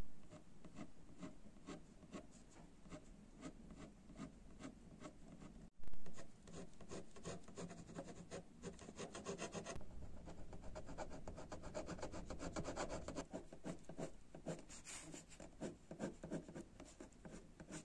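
Ballpoint pen tip scratching across paper in quick, short cross-hatching strokes, several a second, growing faster and denser in the second half, with a brief break about six seconds in.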